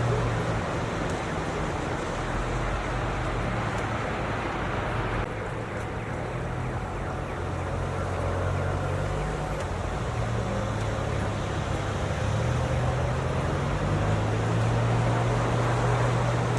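Snowstorm wind ambience: a steady rushing wind noise with a low drone underneath that shifts slightly in pitch now and then.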